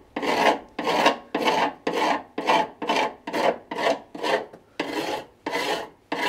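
A hand tool rasping back and forth in steady strokes, about two a second.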